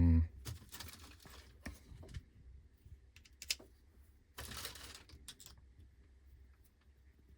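Small plastic and metal clicks and knocks of tool parts being handled, with a short rustle about four and a half seconds in. A steady hum stops just after the start.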